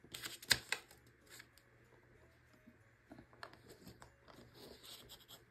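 Craft cutting blade (the red blade of a circle-cutting system) run around a jumbo circle template through green paper: a few sharp clicks as it starts, then faint scratchy cutting near the end. A gem stuck under the paper stops the blade cutting all the way through.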